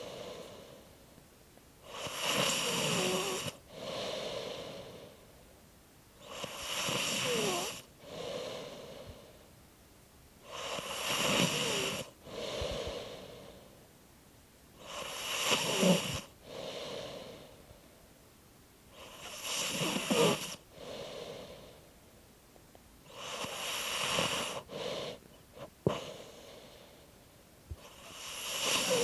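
Slow, rhythmic snoring, about one breath every four seconds: a louder snore on each inhale and a softer exhale after it. Quiet squeaks that waver and fall in pitch ride on the snores.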